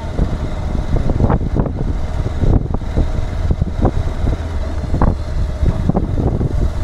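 Wind rumbling and buffeting on the microphone over steady road-vehicle noise, with a faint steady hum underneath.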